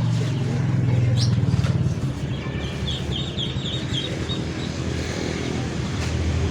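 An engine running steadily with a low, fast-pulsing hum, and a quick run of small bird chirps about three seconds in.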